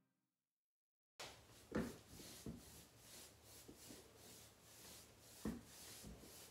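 Faint swishing of a paintbrush stroking back and forth over a painted wooden nightstand, blending chalk paint, with a few soft knocks of the brush or hand. It starts about a second in after dead silence.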